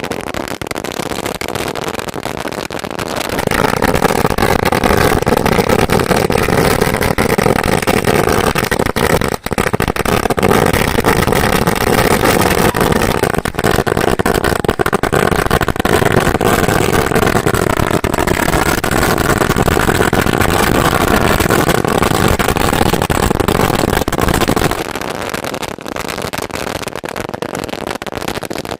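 A very long string of firecrackers going off in a continuous rapid crackle of packed bangs. It grows louder and denser about three seconds in and eases back a little near the end.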